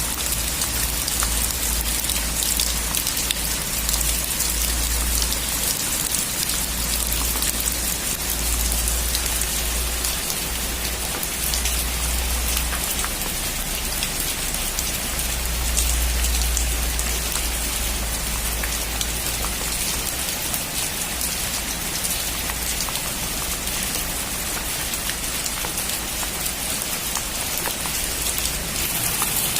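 Steady heavy rain falling on a metal roof, a dense patter of drops with a low rumble underneath that swells and fades.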